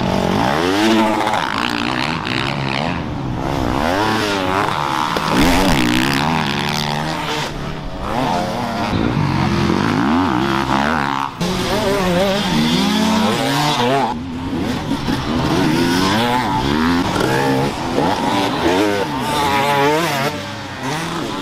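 Several off-road dirt bike engines revving hard, their pitch rising and falling over and over as the riders throttle on and off over the track's hills and jumps.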